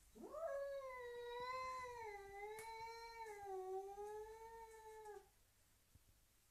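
A domestic cat giving one long yowl, rising quickly at the start, then held with a slight waver in pitch before stopping about five seconds in.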